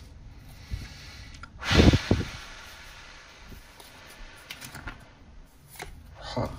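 Trading cards being handled and flipped through by hand, with a louder dull sound about two seconds in and a few light card clicks near the end.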